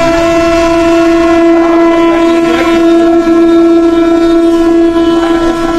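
Vande Bharat Express horn heard from inside the driver's cab: one long, loud blast at a single steady pitch that starts abruptly and is held throughout.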